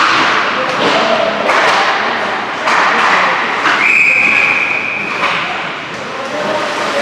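Ice hockey on a rink: skate blades scraping the ice in repeated surges, with sharp thuds of pucks or sticks. A whistle is blown once near the middle, a steady high note held for about a second and a half.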